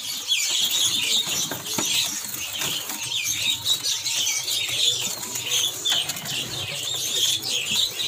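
Many caged songbirds chirping and calling over one another in a dense chatter, with wings fluttering now and then.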